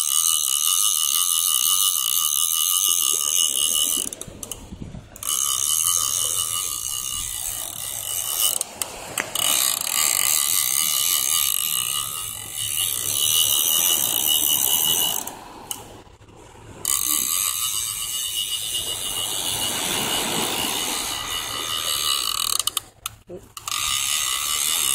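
Fishing reel clicking and whirring with a hooked fish on the line, stopping briefly three times.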